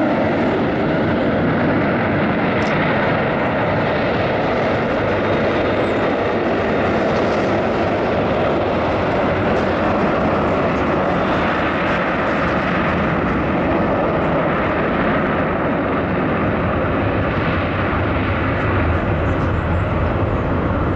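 Boeing 737-800's CFM56 jet engines running steadily as the airliner rolls along the runway, a continuous even jet rumble and hiss.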